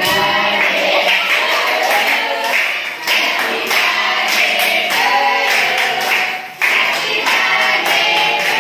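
A group of young voices singing a birthday song together, with many hands clapping along.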